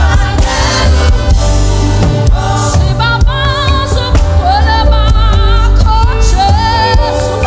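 Gospel worship song: singing with vibrato over a steady band accompaniment with strong bass.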